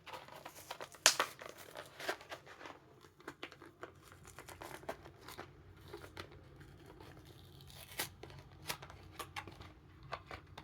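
Hot Wheels card-and-blister package being torn open by hand: irregular tearing, snapping and crinkling, with the sharpest snaps about a second in and near eight seconds.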